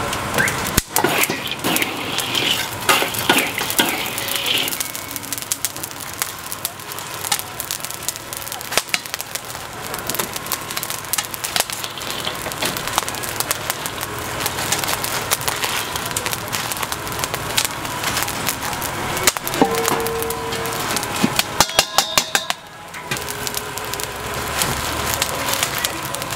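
Paper-wrapped chicken packets being pressed into a wok of hot stones: rustling paper with crackling and clattering of stones and metal. Near the end comes a quick run of sharp clicks.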